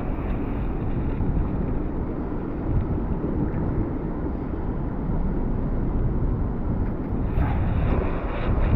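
Wind buffeting an action camera's microphone: a steady low rumble of noise.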